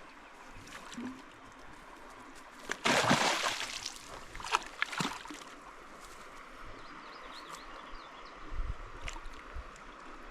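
Water at a stream's edge sloshing and gurgling, with one loud splash about three seconds in, followed by a few sharp knocks.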